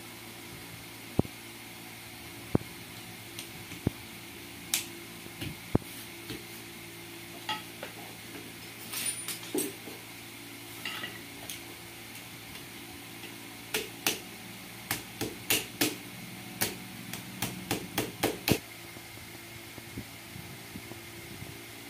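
Metal starter-motor parts and hand tools clinking and knocking against each other and the concrete floor as a tractor starter is worked on by hand. The knocks come irregularly, then in a quick run of about a dozen near the end.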